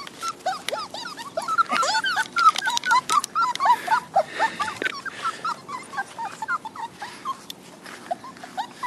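A litter of miniature beagle puppies whimpering and whining in short, bending cries, several a second and overlapping, fewer and further apart after about five seconds.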